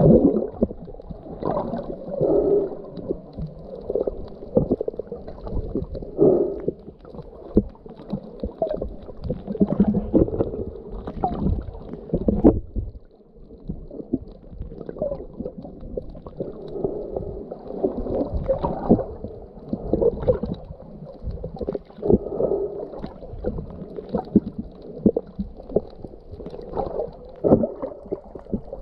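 Muffled underwater sound of water moving around a submerged action camera: uneven gurgling swells over a low rumble, with scattered short knocks.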